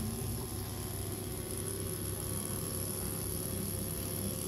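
Corded electric microneedling pen running against the scalp with a steady low buzz.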